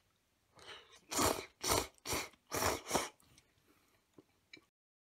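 A person slurping udon noodles: five short, loud, hissy slurps in quick succession, then a couple of faint clicks before the sound cuts off.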